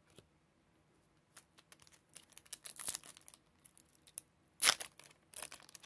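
Foil trading-card pack, a 2020 Donruss Optic baseball pack, crinkling in the hands and being torn open. It is quiet for about a second, then there is scattered crackling, and a loud rip comes about four and a half seconds in, with another shortly after.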